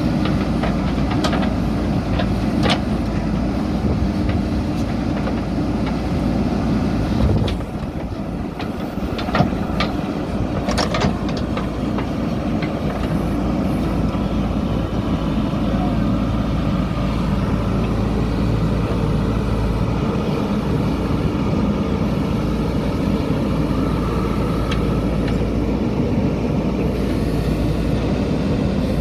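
Backhoe loader's diesel engine running steadily under load, with a few sharp clanks in the first half, typical of the bucket scooping and dumping stone and gravel.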